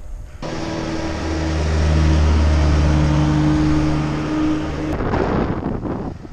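A motor vehicle passing the bicycle on the road: a steady low engine drone that builds, then a short rush of tyre and air noise as it goes by about five seconds in, fading out near the end.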